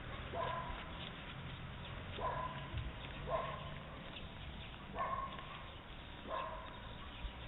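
Five short, high chirping animal calls, spaced a second or so apart.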